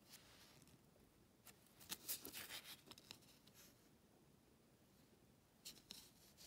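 Faint rustling and light taps as transfer paper and a tape measure are handled on a wooden board. There is a cluster of small clicks and rustles about two seconds in and a brief second one near the end.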